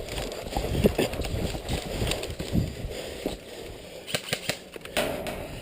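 Running footsteps and gear jostling against a body-worn camera: irregular low thuds for the first few seconds. A handful of sharp clicks follow in the second half.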